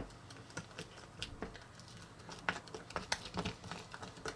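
Faint, irregular clicks and light taps of a utensil against a container while slime powder is mixed into milkshake.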